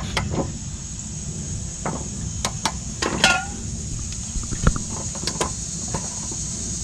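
Scattered, irregular metallic clicks and knocks of a wrench being worked on the rear IRS subframe bolts while they are torqued to 129 ft-lb, over a steady high chirring of crickets.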